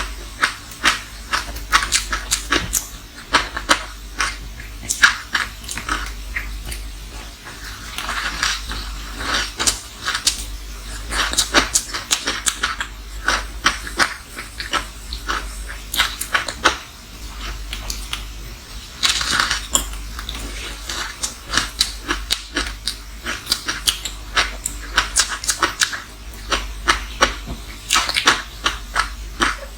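Close-miked crunching and chewing of frozen matcha green tea ice: clusters of sharp, crackling crunches come irregularly throughout.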